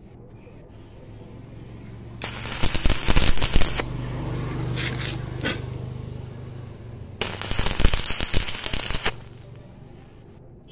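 Stick (arc) welding on galvanized square steel tube: the electrode's arc crackles and spits in two bursts of about one and a half to two seconds each, a couple of seconds in and again about seven seconds in. A low steady hum runs between the bursts.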